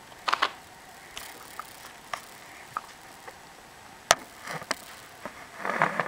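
A hungry cat eating: irregular small clicks and short bursts of chewing and smacking, with one sharp click about four seconds in.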